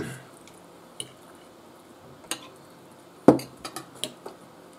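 Cutlery clinking and scraping on ceramic plates in a few sharp separate clicks. A louder knock comes a little over three seconds in, as a drinking glass is set down on the table.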